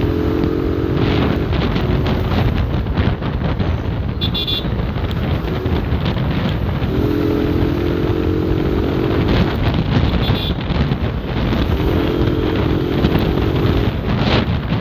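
Motorcycle engine running and wind rushing on the helmet microphone while riding in city traffic. A vehicle horn sounds three times, each blast lasting about two seconds: near the start, about halfway, and near the end.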